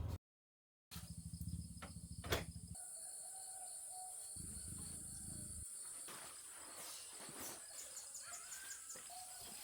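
Rainforest insects droning steadily at a high pitch, louder from about three seconds in, with a few short bird-like calls. A low rumble sits under the first couple of seconds.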